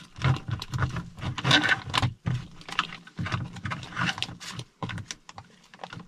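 Foil freeze-dried meal pouch crinkling and rustling as a spoon stirs the rehydrating food inside, in quick irregular crackles.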